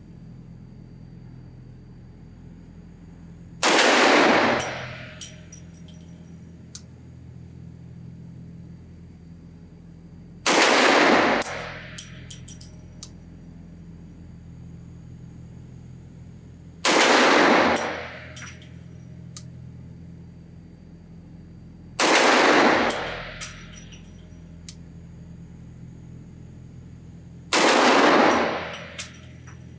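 Coonan Arms Model A .357 Magnum semi-automatic pistol fired five times in slow aimed shots, five to seven seconds apart. Each loud report rings on for about a second in an indoor range, and a few faint clinks follow each shot.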